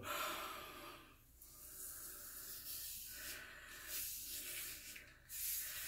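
Gold Monkey straight razor scraping through lather and stubble on the scalp: a run of faint, short rasping strokes.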